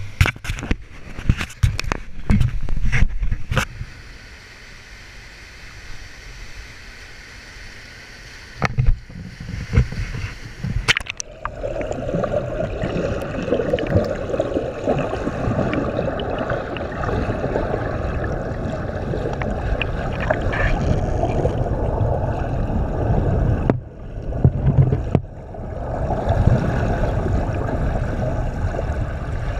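Knocks and bumps of a handheld action camera being moved, then, from about twelve seconds in, a steady muffled churning roar of whitewater plunging over rocks, heard from underwater.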